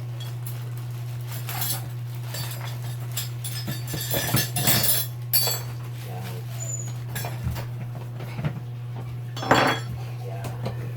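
Small metal and plastic parts clinking and clattering as motorcycle tail-light and signal-light parts are handled, with a brief louder knock and rustle near the end, over a steady low hum.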